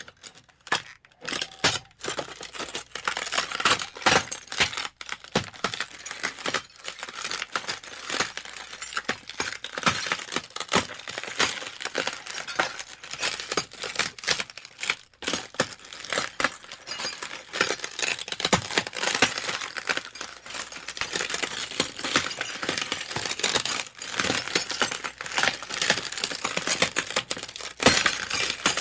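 Crash sound effect: a dense, unbroken clatter of many sharp impacts and breakages, several a second, with louder smashes scattered through.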